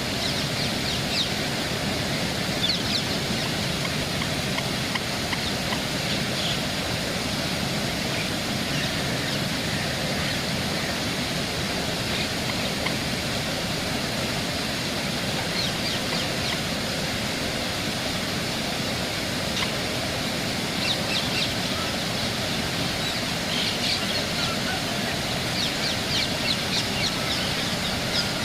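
A steady rushing background noise with brief, high bird calls scattered through it, more of them near the end.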